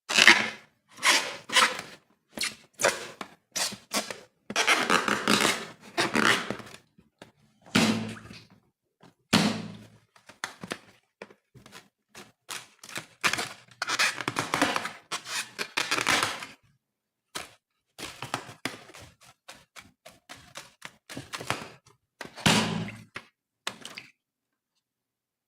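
A long run of short, irregular squishing, clicking and knocking sounds in bursts with silent gaps between them, as slime and balloons are handled.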